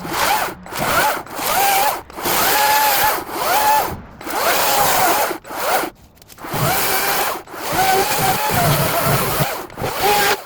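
Ego battery-powered chainsaw triggered in about nine short bursts, its electric motor whine bending up and down as the chain cuts through branches, with the rasp of the chain in wood. It stops abruptly at the end.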